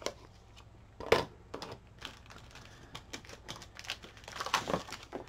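Small plastic ink pad cases and other craft supplies being handled and set down on a cutting mat, making light clicks and taps. There is one sharper knock about a second in and a quick cluster of taps near the end.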